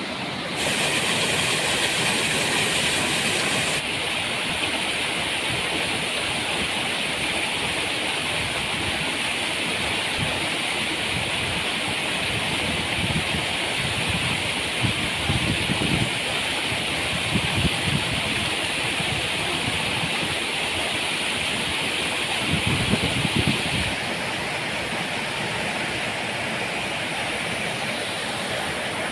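Steady rushing roar of a waterfall, its level and tone changing abruptly a few times, with short low rumbles in the middle and near the end.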